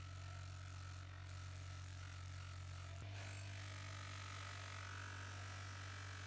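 Electric bench grinder running with a buffing wheel: a steady low motor hum with a faint high whine, as a scissor blade is held to the wheel to polish it.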